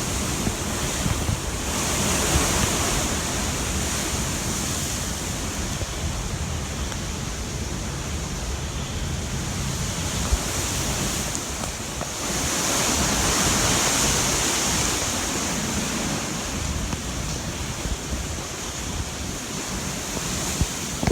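Hurricane wind rushing and gusting, buffeting the microphone with a low rumble. It swells into two longer, louder gusts, about two seconds in and again around the middle.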